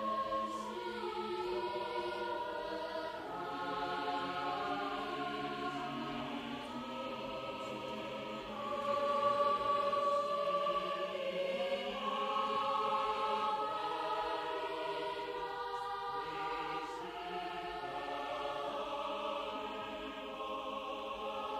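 A choir singing slow, sustained chords, each held for a second or two before moving on.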